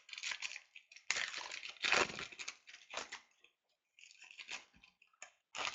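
A Panini Elite baseball card pack being torn open, its wrapper crackling and crinkling in bursts for about three seconds. A few light clicks and rustles follow as the cards are handled.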